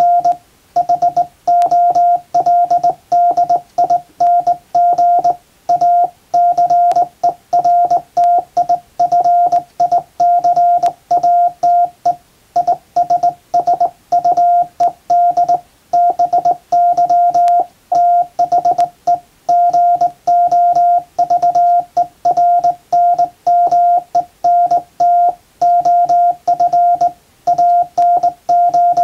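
Hand-sent Morse code: one steady mid-pitched sidetone keyed on and off in dots and dashes from a JRC KY-3A straight key, sending English-text telegram traffic, with short pauses between words.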